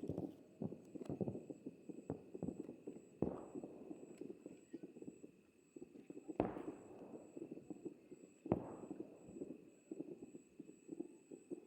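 Aerial fireworks bursting: a dense run of small pops and crackles, with three louder booms a few seconds apart that each echo away.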